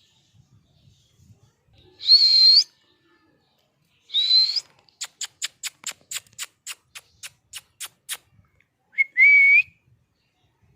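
Pet parrot whistling: two short high whistles that rise at the end, then a quick run of about a dozen sharp clicks, roughly four a second, and a lower whistle near the end.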